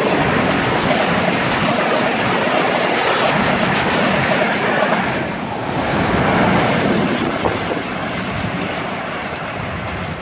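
Passenger train coaches passing at speed, a loud steady rush of steel wheels on the rails with clattering over the rail joints. The sound dips briefly a little past halfway, then rises again and slowly fades as the end of the train draws away.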